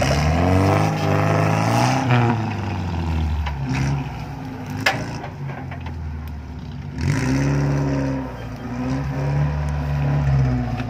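Off-road 4x4 SUV engine working slowly over rough ground, its revs rising under throttle about twice and easing off in between. A sharp knock or snap about five seconds in.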